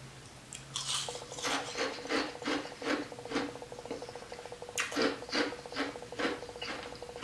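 Ice being crunched between the teeth: a run of sharp crunches, about two or three a second, with a short pause midway, over a faint steady hum.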